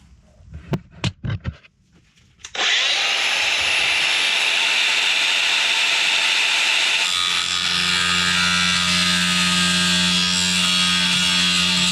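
A few small clicks and knocks, then an angle grinder spins up and grinds or cuts metal steadily for about nine seconds.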